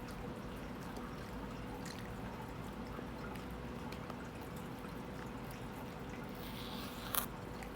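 Steady background hiss with a faint steady hum, and a few light clicks, with one sharper click near the end.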